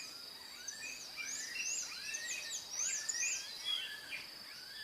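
Several birds chirping with quick, repeated high calls, over a steady high-pitched insect drone.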